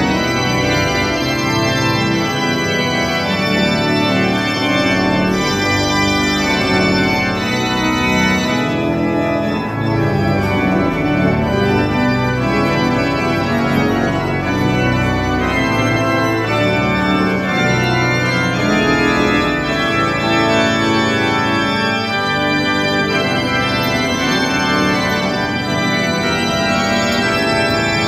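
Church pipe organ playing a dense, many-voiced piece, full chords sustained over a deep bass, at a steady loudness throughout.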